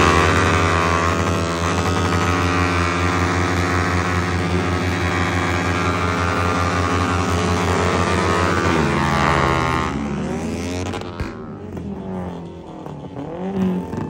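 Sport motorcycle engine held at high revs in a stationary burnout, its rear tyre smoking. The steady high note runs for about nine seconds, then the revs drop off and the engine settles into a lower, uneven running.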